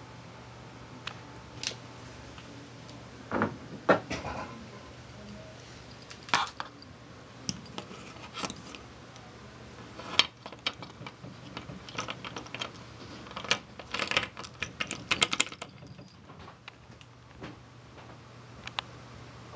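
Irregular light clicks, taps and rattles, some in quick clusters, over a steady low hum.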